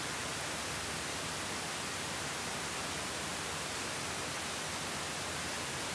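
Steady background hiss with no distinct sounds in it.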